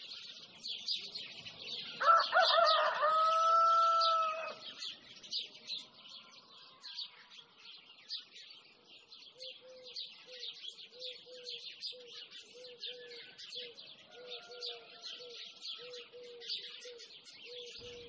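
A rooster crows once, a long call about two seconds in, over steady high chirping of small birds. From about halfway, a low short call repeats about twice a second.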